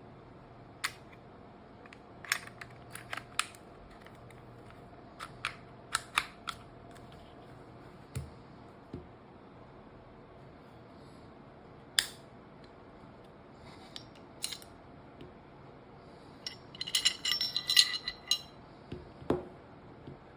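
Scattered sharp mechanical clicks, with a short burst of rattling clicks near the end: a Glock 17 MOS Gen 5 pistol being handled.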